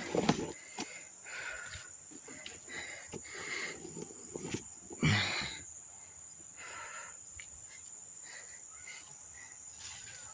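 Insects, crickets or similar, chirring steadily in a high band, with several short noisy sounds over them; the loudest of these comes about five seconds in.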